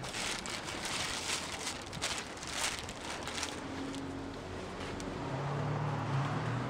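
City street noise: passing traffic and wind on the microphone, with scattered rustling and handling noise in the first few seconds and a low engine hum near the end.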